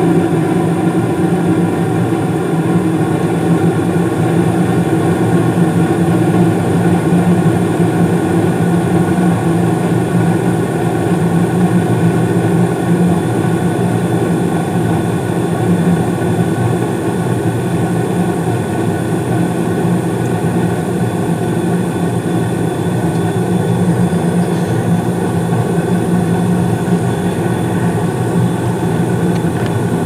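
2016 Carrier single-stage gas furnace running in heat mode with its cover off: a steady hum from the draft inducer motor together with the rush of the lit gas burners.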